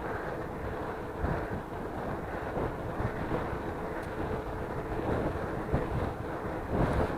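Strong wind buffeting the microphone during a bicycle ride, a steady rumble with uneven gusts.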